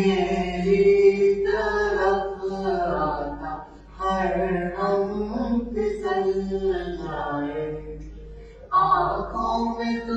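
A man and a woman singing together, voices only, in long held phrases of a couple of seconds each with short breaths between.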